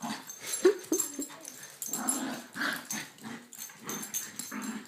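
Puppies play-fighting, growling with a few short yips about a second in.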